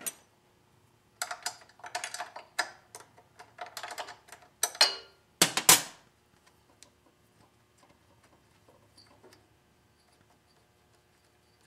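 Runs of quick metal clicks and clatter from a hand tool unscrewing the two 7/16-inch bolts that hold a small-engine carburetor to its intake manifold. The loudest clatter comes about five and a half seconds in, and only faint ticks follow.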